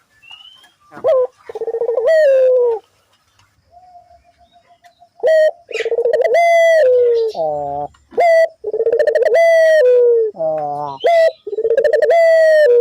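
Puter dove (local Indonesian turtle dove) cooing over and over. The long, loud coos sag in pitch at the end and are broken by short rolling notes. This is the calling used as a lure to set other puter doves cooing.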